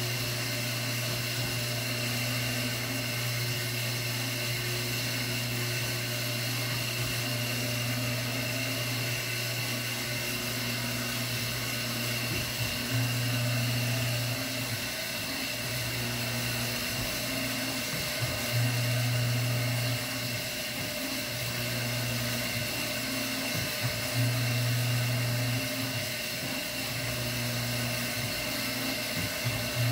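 Electric drive motors of a motorized rocking bed frame humming steadily as the bed rocks, the hum swelling louder about every five to six seconds.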